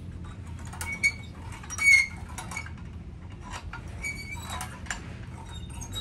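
Light metallic clicks and clinks from a Manlapat bolt-action airgun being handled at its action, the sharpest about two seconds in.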